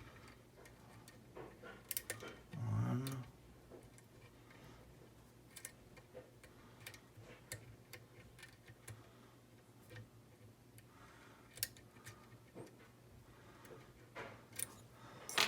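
Light, irregular clicks and ticks of a lock pick working the pin stacks of an ERA rim cylinder under a tension wrench.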